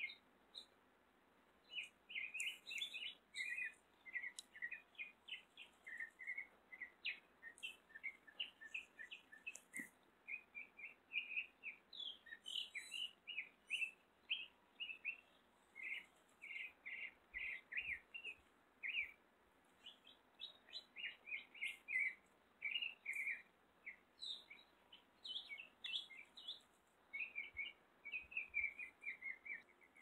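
Small songbirds chirping and calling almost without pause, a steady stream of short, high, varied notes.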